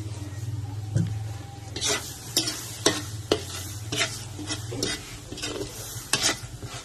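Metal spoon stirring a sizzling, foaming butter mixture in a large aluminium wok. From about two seconds in it gives a run of sharp scrapes and taps against the pan, over a steady low hum.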